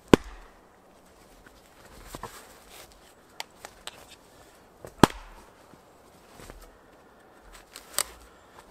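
A wooden baton striking an upright log section: three sharp wooden cracks, just after the start, about five seconds in and near the end, the first two loudest. A few light clicks and rustling come between.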